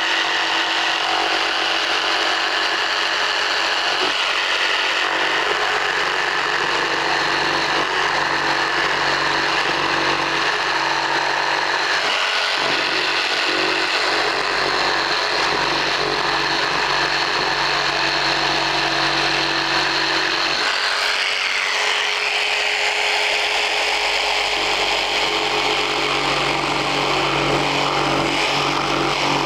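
Festool Trion jigsaw fitted with a Collins coping foot, running and cutting a cope in the end of a baseboard. Its steady motor and blade sound changes in tone for a few seconds about two thirds of the way through.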